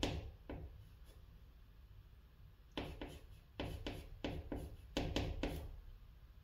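White chalk writing on a green chalkboard, stroke by stroke, as a multi-stroke hanja character is written. A few separate short scratches come in the first second. A quick run of short scratching strokes follows from about three seconds in until nearly six seconds.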